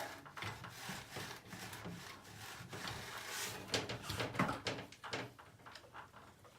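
Faint, irregular rustling and light knocks from handling parts and shifting about in a cramped space.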